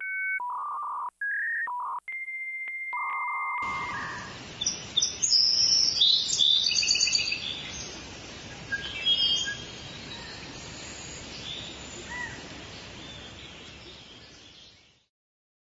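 A short run of steady electronic beeps stepping between several pitches, then outdoor ambience with birds chirping and calling over a steady hiss, busiest in the middle and fading out near the end.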